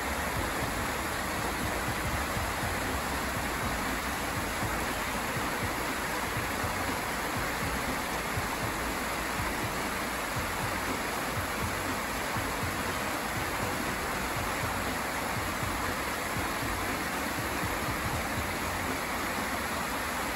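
Creek water spilling over a low line of rocks in a small cascade, a steady rushing.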